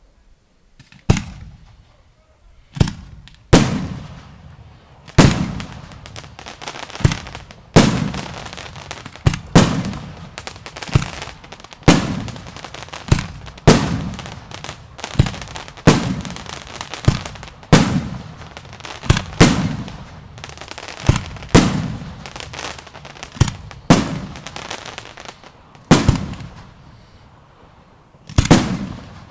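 Aerial fireworks display: a steady run of loud shell bursts, about one or two bangs a second, each followed by a rolling echo and crackle.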